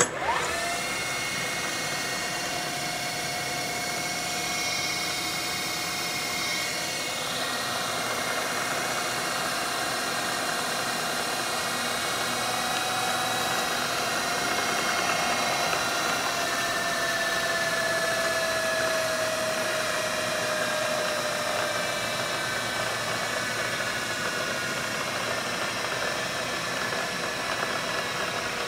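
Southwestern Trak DPM CNC mill's spindle head switched on and running steadily, a whining hum of several steady tones over a hiss from the motor and variable-speed belt drive. The pitch slides slightly lower partway through, then holds.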